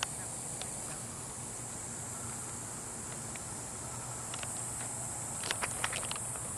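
Steady high-pitched insect chorus. Footsteps start near the end.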